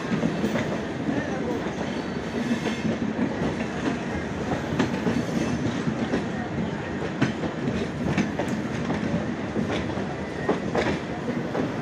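Running noise of a train heard from its own coach, with steel wheels clicking irregularly over rail joints and points.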